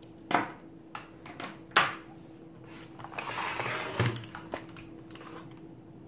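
Plastic mechanical keyboard being handled and turned over on a wooden tabletop: several sharp knocks and clacks, a scraping slide about three seconds in, a thump at about four seconds, then a few lighter clicks.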